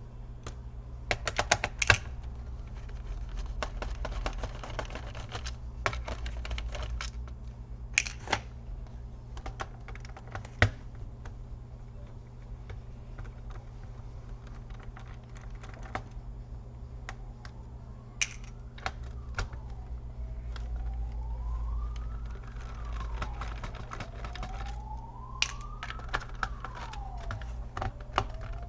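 A small screwdriver working screws out of a laptop's plastic bottom case, with scattered clicks and taps of the tool and loose screws. A steady low hum runs underneath, and in the second half a tone rises and falls slowly in the background, like a siren.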